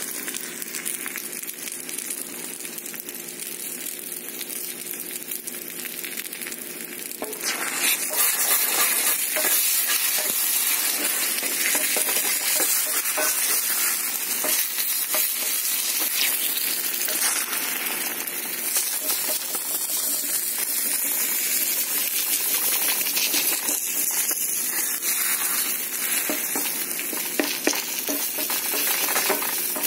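Eggs with onions frying in a cast iron skillet, sizzling steadily, the sizzle growing louder about seven seconds in. A wooden spatula scrapes and taps in the pan as the eggs are stirred and scrambled.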